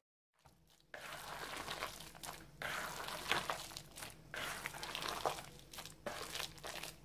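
A bare hand squeezing and turning a wet batter of ground red lentils, sliced onion and egg in a bowl: irregular squelching and crackling, starting about a second in after a moment of silence.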